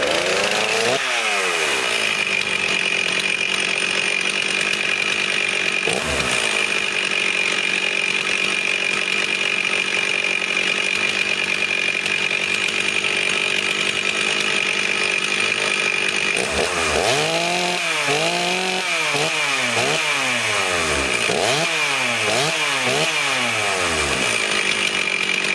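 Stihl 036 Pro two-stroke chainsaw on a cold start. It catches and runs steadily for a while, then is revved up and down several times in quick succession, about once a second.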